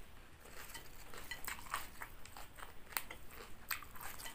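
Quiet eating sounds: chewing, with scattered small clicks and rustles as Thai basil leaves are picked into a bowl of noodle soup.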